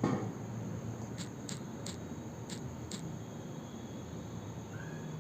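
Faint taps of typing on a phone's touchscreen keyboard: about five light clicks spaced roughly half a second apart over low room hiss.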